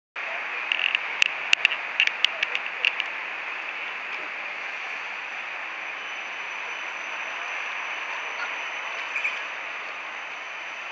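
Siemens Combino low-floor tram running along the track beside the platform: a steady rushing noise, with a quick run of sharp clicks over the first three seconds.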